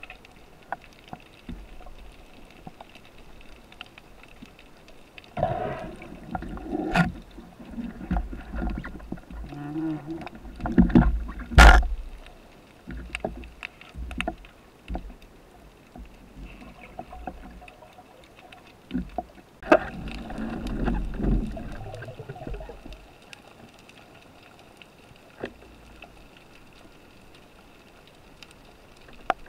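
Muffled underwater sound through a camera housing: two stretches of water sloshing and gurgling, and several sharp knocks, the loudest about twelve seconds in.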